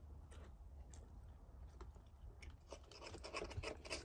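Knife and fork clicking and scraping on a plate while cutting food, faint and scattered at first, then a quicker run of clicks near the end.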